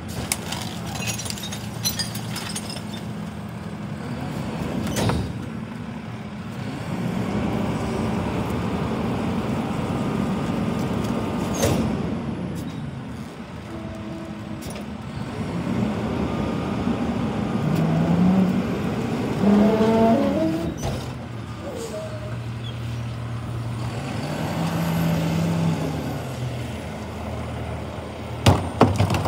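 McNeilus rear-loader garbage truck cycling its hydraulic packer to compact bulky trash. The engine runs steadily and revs up and down with the compaction stroke, with a few sharp knocks and bangs from the hopper.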